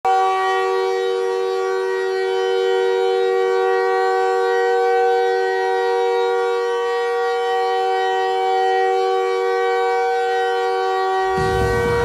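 Montreal Canadiens hockey goal horn sounding one long, steady blast: a multi-note chord held at one pitch, with no rise or fall. Near the end, a deeper, noisier sound comes in underneath it.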